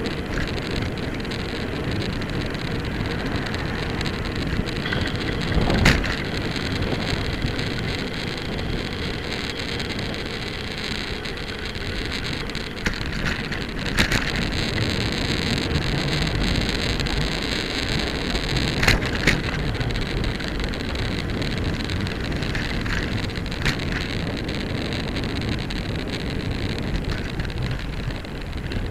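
Steady rush of wind on a bicycle camera's microphone with tyre noise on the road as the bike rides along, broken by a few sharp knocks, the loudest about six seconds in.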